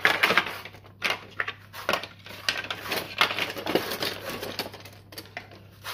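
Lemon being zested against a metal zester: a run of short scraping strokes, about two a second and uneven in strength.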